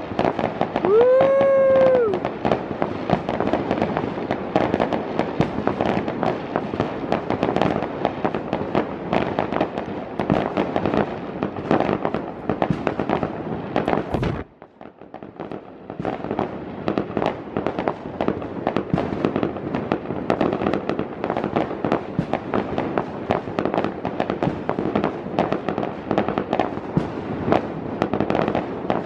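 Many fireworks going off at once: a dense, continuous crackle of pops and bangs that drops away briefly about halfway through.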